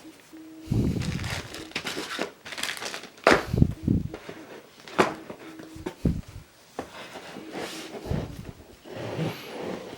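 Packaging and parts being handled during an unboxing: rustling and crinkling, with several sharp clicks and a few low thumps as things are moved and set down.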